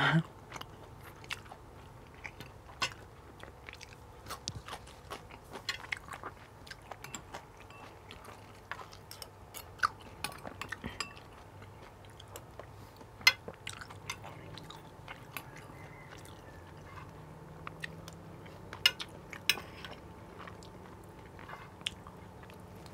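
Close-miked chewing of rice with garlic-fried pork, with scattered sharp clicks of a metal spoon on a ceramic plate. A faint steady hum runs underneath.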